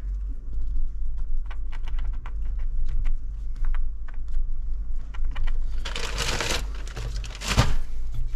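Gloved hand spreading and patting fine seed-starting soil over sown leek seeds in a plastic tray: a run of light, irregular crackly ticks and rustles, with two louder rustling brushes about six and seven and a half seconds in.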